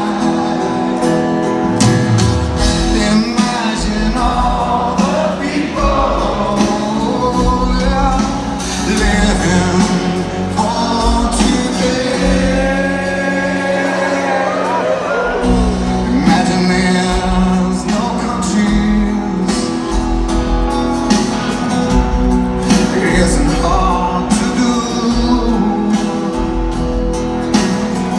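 Live rock band playing a slow ballad with a male lead singer, recorded from the stands on a phone in a stadium. About eight seconds in the bass drops away, and it comes back about halfway through.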